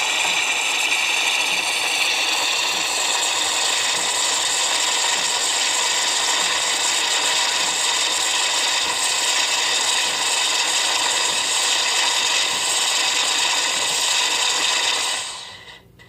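Automatic espresso machine running with a steady, loud mechanical whirring, cutting off suddenly about fifteen seconds in.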